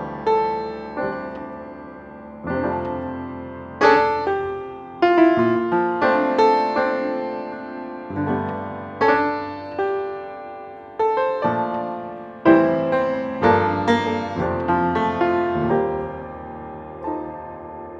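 Background piano music: single notes and chords struck at a slow pace, each ringing out and fading.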